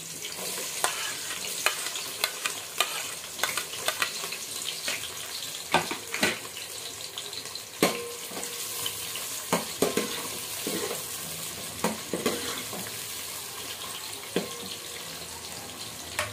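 Sliced onions sizzling in hot oil in an aluminium pot, with a spoon knocking and scraping against the pot at irregular moments as they are stirred.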